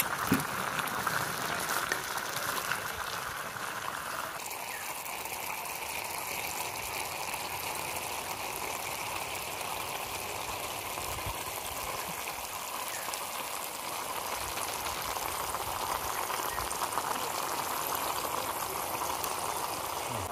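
Clay pots of biryani simmering over a wood fire: a steady bubbling hiss, which changes tone about four seconds in.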